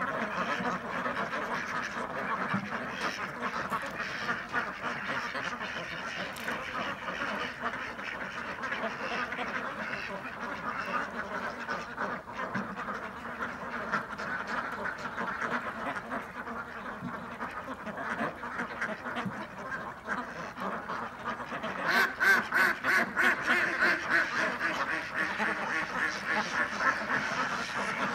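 A large flock of domestic ducks quacking, a dense overlapping chorus of calls that grows louder with a run of rapid quacks about three quarters of the way through.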